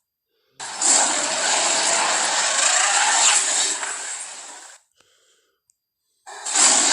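Designed film sound effect of a Carnotaurus roaring: one long roar of about four seconds that tails off, and another starts near the end.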